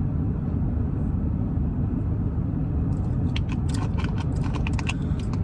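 Steady low rumble inside a car's cabin. From about three seconds in it is joined by a quick run of light clicks and rattles.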